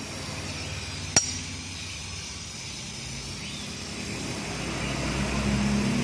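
A single sharp metallic tap with a short high ring about a second in, over steady workshop background noise; a low hum builds over the last two seconds.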